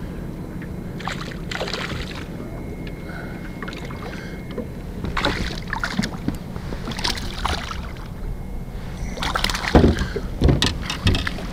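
Steady low hum of a boat motor, with scattered knocks, clicks and rustles around it as a just-landed smallmouth bass is handled aboard.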